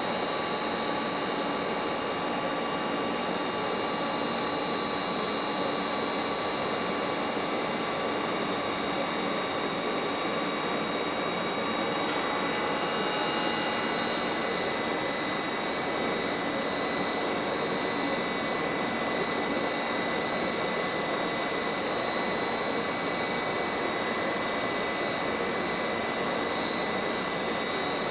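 Kawashima screw-type compost turner running: a steady mechanical whir with a high whine from the machine's drive as its carriage and twin auger screws operate.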